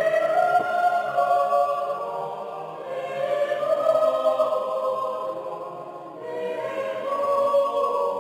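Mixed choir of women and men singing in harmony, holding long chords; the sound dips about six seconds in, then the next phrase swells up.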